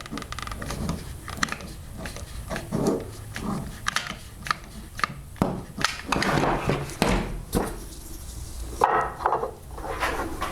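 Scattered clicks and knocks with a few short stretches of rubbing: wooden pieces and tools being handled and set in place at a workbench while a stop block is fitted to a table saw crosscut sled.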